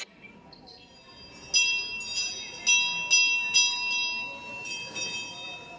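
A temple bell rung over and over, about two strikes a second, starting about a second and a half in; each strike is a bright, high ringing that dies away before the next.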